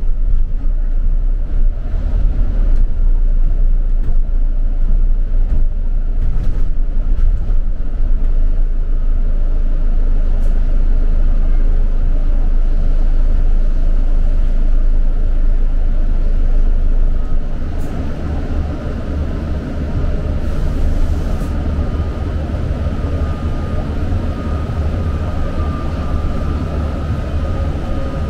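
London bus heard from inside while it runs: a steady low engine and road drone with faint rattles. About two-thirds of the way through the drone drops in level, and a thin high whine comes in and grows louder near the end.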